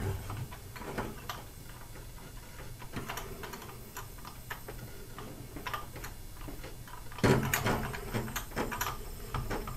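Small clicks and handling noises from a leak-down tester's air-hose coupler and fittings being worked, over a low steady hum. About seven seconds in there is a louder stretch of sound lasting a second or two.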